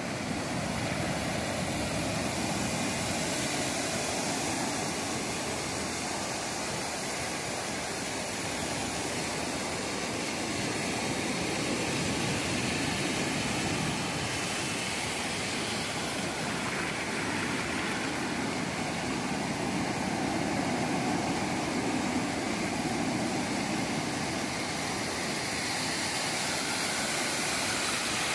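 Surf on a sandy beach: small waves breaking and washing up the sand as a steady rushing noise that swells and eases slowly.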